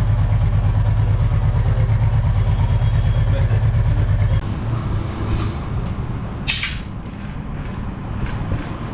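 Royal Enfield Meteor 350's single-cylinder engine idling with an even, low pulsing beat, run to circulate the engine oil flush. It cuts off abruptly about four and a half seconds in, leaving quieter clatter with a few clicks and a short hiss.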